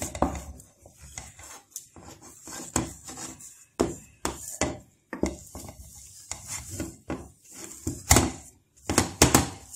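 Wooden spoon stirring and mashing thick carrot fufu dough in an enamel saucepan, in irregular scrapes and knocks against the pot, the loudest knocks coming near the end.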